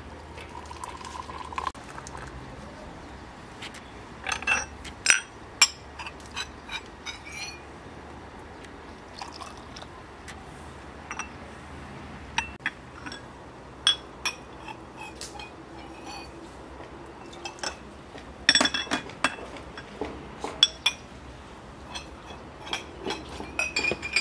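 Cut-glass tea glasses clinking against each other and against saucers as they are set out, with liquid running from a samovar's tap into a glass.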